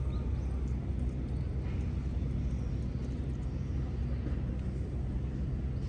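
Steady low rumble of background noise, with a few faint short high chirps.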